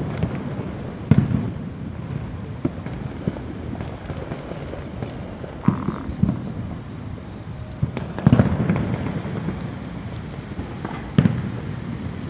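Fireworks display: four loud shell bursts a few seconds apart, with smaller pops and crackles between them over a continuous low rumble.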